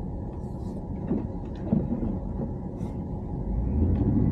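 Pickup truck driving on a snowy road, heard from inside the cab: a steady low engine and road rumble that grows louder near the end.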